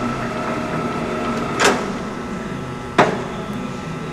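LeBlond Regal 15C gear-head engine lathe running at a low spindle speed: the motor and headstock gearing give a steady hum with a faint high tone in it. Two sharp clunks come about a second and a half and three seconds in.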